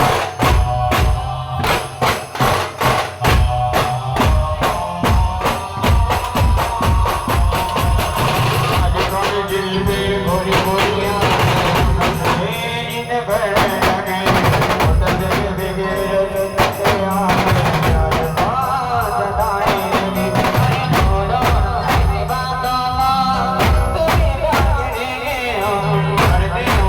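A band playing: dense, fast drumming, with a wavering melody line joining about eight seconds in.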